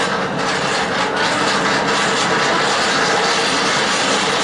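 Hand-cranked, geared centrifugal blower on a coal forge, spun steadily: a steady whir and rush of air blown up through the bottom of the forge, with a faint steady hum.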